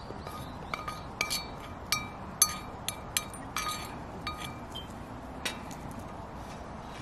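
A metal spoon scraping and knocking food out of a small black frying pan into a stainless steel cup, giving about a dozen sharp, ringing metal clinks that stop shortly after the middle.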